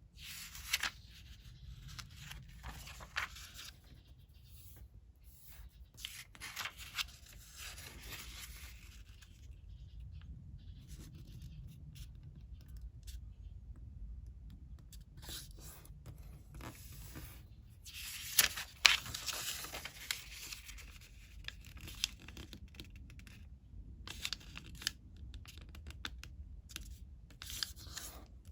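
Sheet of coloured origami paper being handled and folded by hand, rustling in bursts, with crisp crackles as folds are pressed and creased. A sharp pair of crackles comes about two-thirds of the way through.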